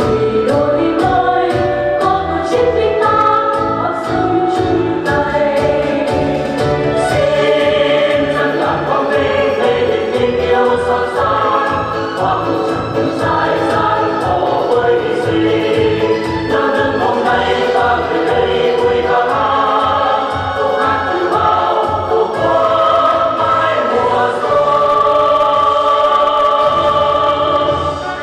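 Music with several voices singing together over a steady beat.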